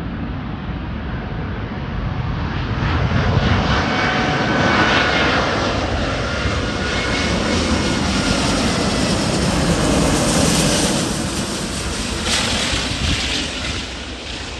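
Airbus A380-841's four Rolls-Royce Trent 970 turbofans on final approach, passing close by: a jet roar that builds over the first few seconds with a fan whine sliding slightly lower, then eases off near the end.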